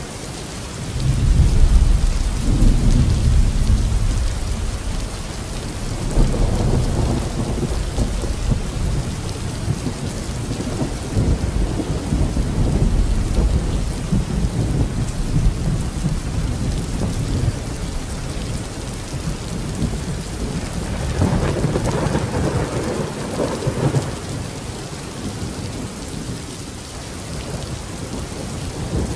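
Steady heavy rain with rolls of thunder. The loudest rumble of thunder swells up about a second in and fades over a few seconds. Further rumbles follow a few seconds later and again past the two-thirds mark.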